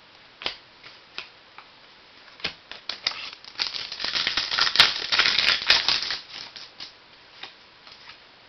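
Trading cards and their packaging being handled: scattered clicks, then a dense run of rustling and clicks in the middle lasting about two and a half seconds, before it thins out to a few clicks again.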